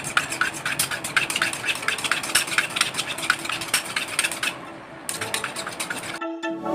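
Kitchen knife being sharpened on a handheld sharpening stone: quick metal-on-stone scrapes, several a second, with a short break about four and a half seconds in. Music takes over near the end.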